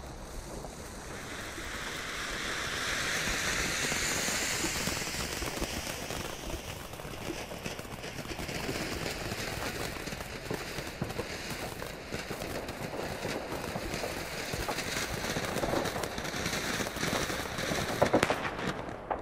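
Ground fountain firework burning with a steady rushing hiss of spraying sparks. The hiss builds over the first few seconds, and there are sharp crackles near the end.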